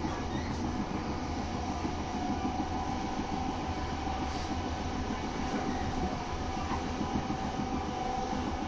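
Electric passenger train heard from inside the carriage while running at speed: a steady rolling rumble with a constant whine over it.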